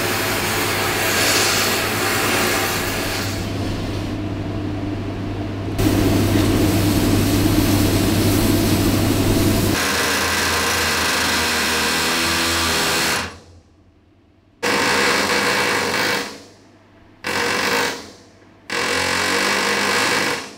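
Power drill running into the steel bolts of a tank's turret ring, with a steady motor buzz, in several edited stretches that break off into short silences near the end.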